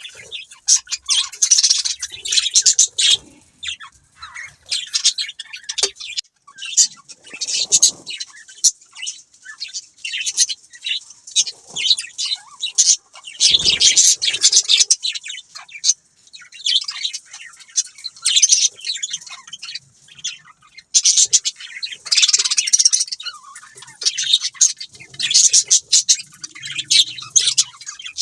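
Several budgerigars chattering and chirping in quick, high, warbling runs with brief pauses, with a low thump about halfway through.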